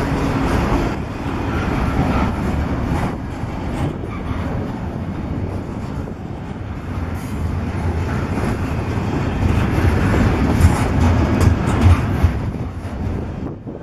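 Freight train of double-stack container well cars rolling past: steady rumble and rattle of steel wheels on the rails, with a few sharper, louder knocks near the end.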